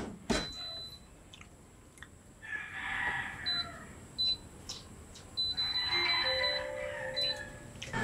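Cherry digital air fryer: the basket clunks shut, then the touch control panel gives short high beeps at each button press, with a quick run of beeps near the middle, as the temperature and cooking time are set.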